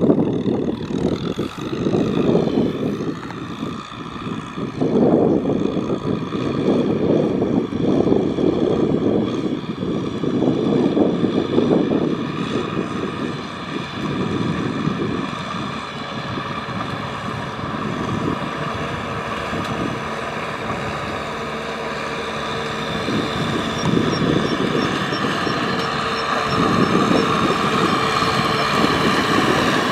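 Tractor engine running hard while ploughing through deep mud, its low rumble swelling and easing through the first half, then settling to a steadier note.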